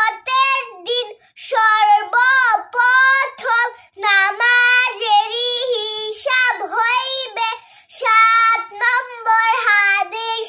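A young girl singing a melodic chant in a high voice, phrases of held notes broken by short pauses for breath.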